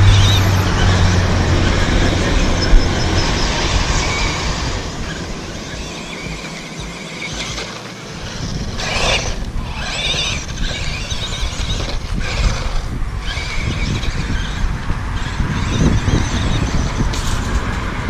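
Electric motor and drivetrain of a 1/12 scale 2WD RC truck whining while it drives across loose sandy dirt, the tyres churning the sand and the sound rising and falling with the throttle. A single sharp knock about three seconds in.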